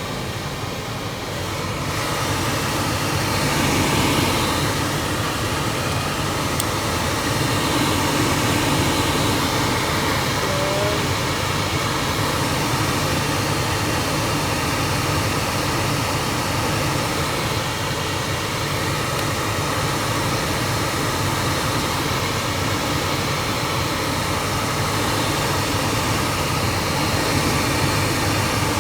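Volvo XC90 cabin heater blower fan running on test, a steady rush of air that gets louder about two seconds in. It runs with no chirp, a sign the replacement fan is sound where the old one chirped.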